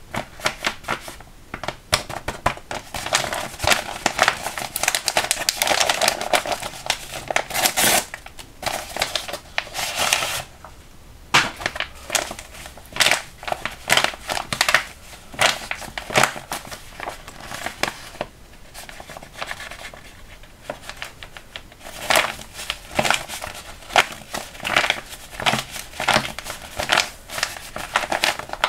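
Handmade paper blind bag being squeezed and pulled open by hand: irregular crinkling and tearing of paper, with a short lull about ten seconds in.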